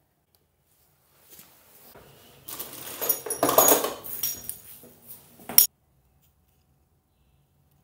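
Metal hand tools clinking and clattering as someone rummages through a toolbox. The sound starts faintly, gets busier, and ends on a sharp clink.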